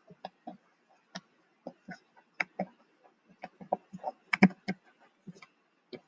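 Irregular clicks and taps of a pen stylus on a touchscreen while handwriting, the loudest tap about four and a half seconds in.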